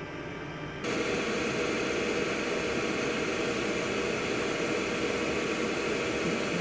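XYZprinting da Vinci Junior 3D printer loading filament into its heated extruder: a steady whirring hiss from the machine, like a fan, starts abruptly about a second in and holds evenly.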